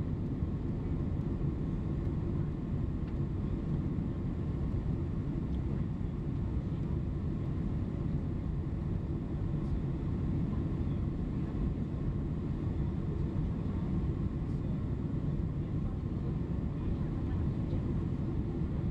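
Steady, unchanging low cabin noise of a Boeing 767-300 on approach to land, the engines and airflow heard from inside the cabin.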